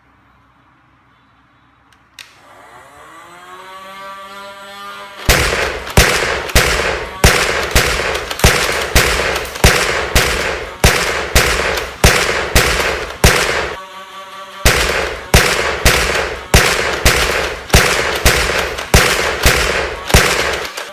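Battery-powered automatic foam-dart blaster: its motor spins up with a rising whine about two seconds in, then it fires darts in a long run of loud sharp shots, about two a second, with a short break near the middle, emptying the magazine.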